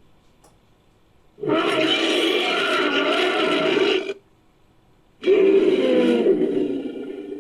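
Two long, low roaring calls of a mammoth-like creature, a designed sound effect built from woolly mammoth sounds. The first starts about a second and a half in and lasts nearly three seconds. The second starts about five seconds in and fades away.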